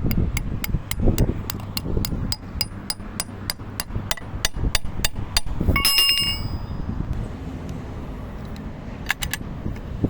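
A quick, even run of light metallic taps, about four or five a second, then one ringing metal strike about six seconds in and a few more taps near the end, over a low steady rumble.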